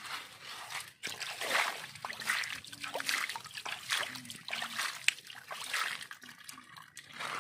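A hand splashing and scooping shallow muddy water over a plastic toy dump truck, in repeated irregular splashes with water trickling and dribbling off the sand and gravel in its bed.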